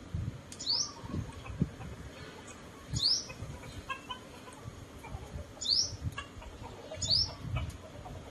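Small bird calling: four short, sharply rising notes a couple of seconds apart, over scattered soft low thuds.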